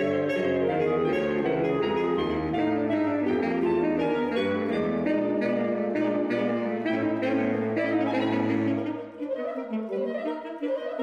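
Saxophone quartet of soprano, alto, tenor and baritone saxophones playing a twelve-tone piece meant to resemble a train. A low bass line drops out about nine seconds in, and the upper saxophones go on more quietly.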